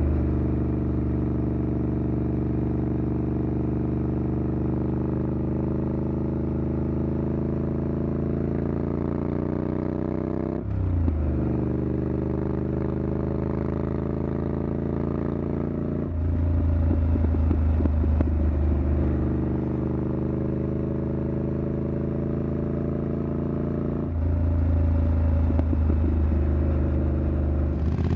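Triumph Scrambler 900's parallel-twin engine running through an aftermarket exhaust while riding. Its pitch climbs steadily for about ten seconds, then drops sharply at a gear change. Louder, rougher stretches of exhaust sound follow, one just past the middle and one near the end.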